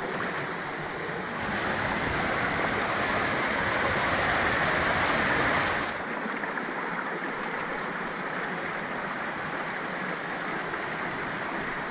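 Creek water rushing, a steady noise that grows louder about one and a half seconds in and drops back abruptly at about six seconds.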